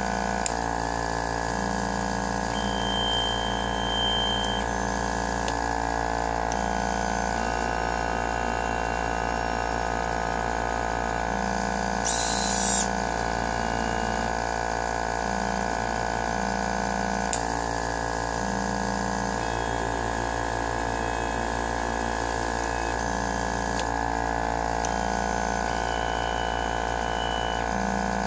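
Home-built pick-and-place machine at work: a steady mechanical hum with a low tone that switches on and off every second or so as the head moves, and a short hiss about twelve seconds in.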